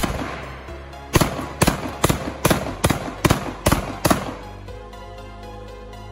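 Rock Island Armory VR80 semi-automatic 12-gauge shotgun firing: one shot, then about a second later a rapid string of eight shots, about two to three a second, each trailing off in a short echo. Background music plays underneath.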